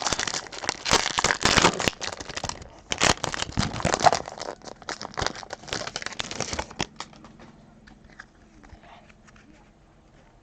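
Foil trading-card pack wrapper crinkling and crumpling in the hands for about seven seconds, then only faint light clicks of cards being handled.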